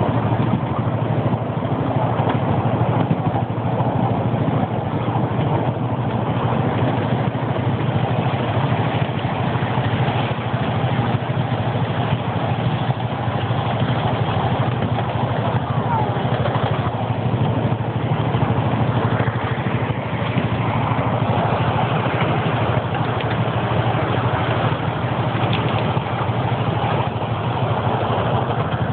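Miniature ride-on train running, heard from aboard its carriage: a steady low engine drone with rumble.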